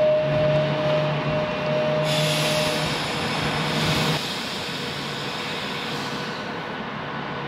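Class 390 Pendolino electric train at the platform, its equipment giving a steady two-note whine that cuts out about four seconds in. A hiss of air runs over it from about two seconds in and fades out near the end.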